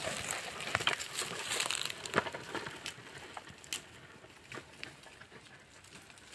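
Wooden ox-drawn plough tearing through dry, stony soil: irregular crunching and crackling of clods, stones and dry stalks, louder in the first few seconds and fading toward the end.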